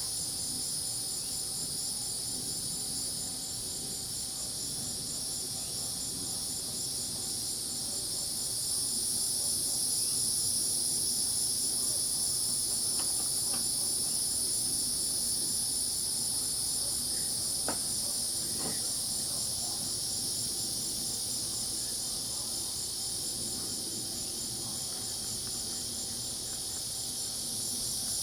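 Night chorus of crickets and cicadas: steady high-pitched trilling in several layers, one of them pulsing rapidly, with a fainter low chorus of frogs underneath and a few brief calls partway through.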